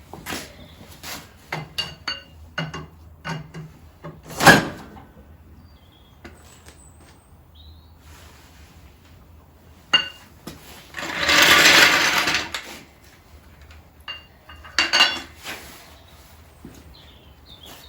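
Metal tools and parts clinking and knocking while a small tractor wheel is refitted, with one loud knock about four and a half seconds in and a rushing noise lasting about two seconds in the second half.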